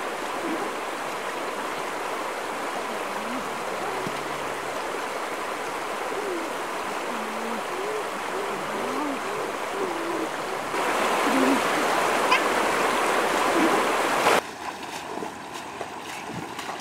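Shallow stream rushing over rocks, a steady rush of water with a few faint, brief voice sounds. The rush gets louder about two-thirds of the way through, then drops off abruptly near the end.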